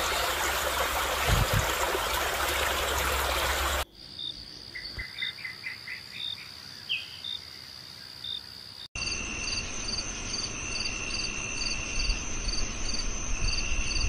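Rushing stream water for the first four seconds, then an abrupt cut to crickets chirping. After a second cut about nine seconds in, a steady high insect trill runs with chirps repeating about twice a second.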